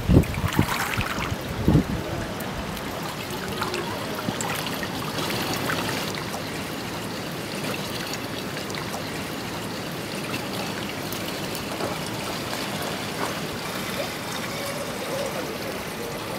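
Steady trickling of pool water running into the overflow gutter along the pool's edge, with a few dull low thumps in the first two seconds.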